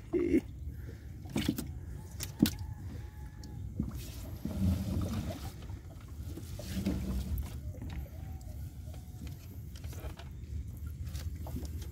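Fishing net being hauled by hand over the side of a small boat: scattered knocks and rustles against the hull over a low steady rumble.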